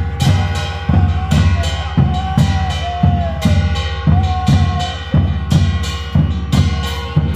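Instrumental passage of a Bengali devotional hari sangeet: drums beat a steady rhythm of about two strokes a second, with metallic strokes ringing high over them, under a bending melody line.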